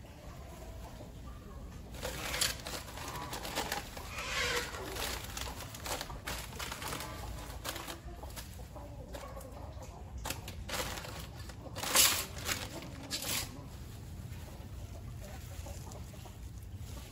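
Chickens clucking, with a few sharp clicks mixed in; the loudest click comes about twelve seconds in.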